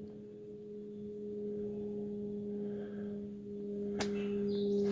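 A steady low hum holding one pitch with an overtone above it, and one sharp click about four seconds in.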